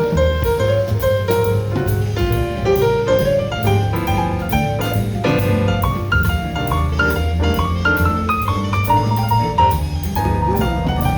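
Jazz music: piano playing a melodic line over bass and drums, with a steady cymbal beat.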